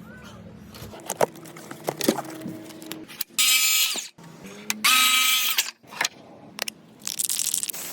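Power drill run in short bursts of about a second, each at a steady pitch: two loud runs, then a fainter third near the end, with knocks and clicks of handling wood and hardware between them.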